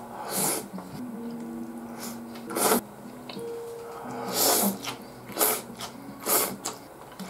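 A person slurping ramen noodles from a bowl in about five short, loud sucks, with quiet background music.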